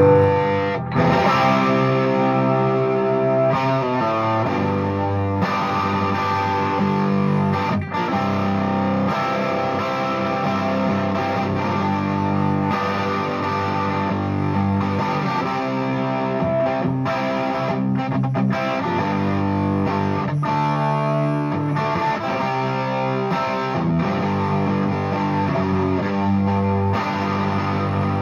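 Gibson ES-335 semi-hollow electric guitar played through a Fuchs Train-45 tube amp fitted with 6V6 power tubes: chords strummed one after another and left to ring.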